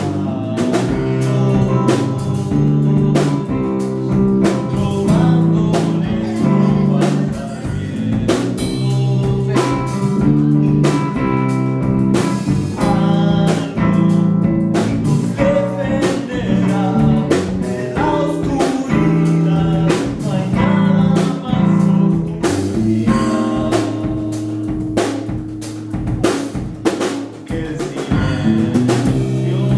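Band music with a drum kit keeping a steady beat under guitar chords.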